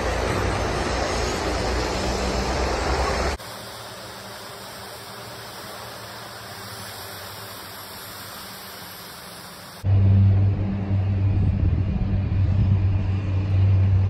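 Outdoor ambience in three cuts: a loud, even crowd hubbub, then a quieter stretch with a floatplane's engine running out on the water, then about ten seconds in a loud, steady low hum.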